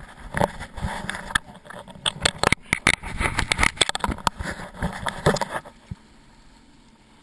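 Handling noise on an action camera: irregular knocks, bumps and scrapes against the camera for about five and a half seconds while it is moved and fixed in place. After that the sound drops suddenly to a quiet, steady background.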